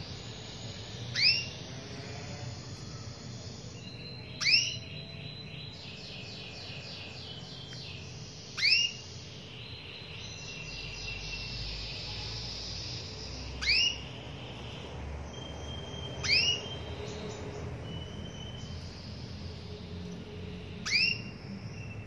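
Female domestic canary calling for a male: six short, loud call notes a few seconds apart, each a quick rising sweep in pitch, over fainter twittering and brief whistles.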